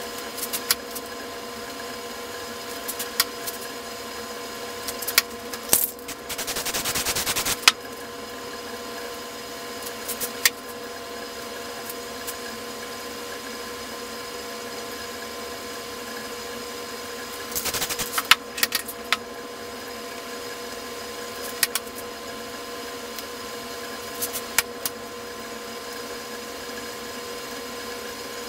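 Aerosol spray paint can hissing in two short bursts, the longer one about a second and a half long some six seconds in, a shorter one near the eighteenth second. Scattered small clicks and taps of the scraper and paper masks against the board, over a steady hum.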